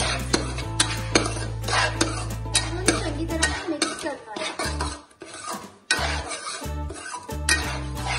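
A slotted steel spatula scrapes and stirs roasted gram flour (besan) with sugar around a metal kadai, in a run of quick metal-on-metal scrapes and clinks. Background music with a steady bass plays under it and drops out for a couple of seconds midway.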